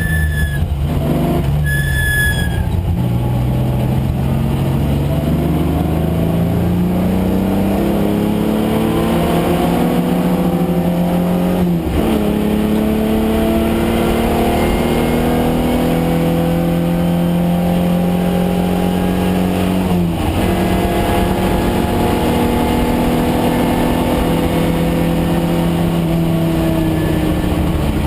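Datsun 510 wagon's swapped-in Nissan VG30 V6 racing under load, revs climbing steadily. It shifts up twice, each shift a sudden drop in pitch before the revs climb again.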